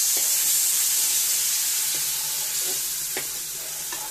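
Vinegar poured into a hot pan of fried rambutan pickle masala sizzles loudly and slowly dies down. A few clicks of a steel spoon against the metal pan can be heard.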